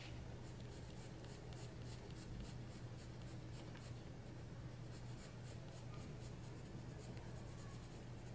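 Castle Art Premium Soft Touch coloured pencil scratching on paper in quick, even shading strokes, about three a second, over a low steady hum.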